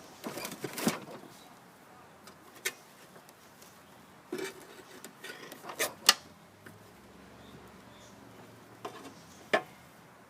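Scattered clicks, taps and light scrapes of hand work on a walk-behind mower's drive axle as wrapped-up debris is picked away, with the sharpest click about six seconds in.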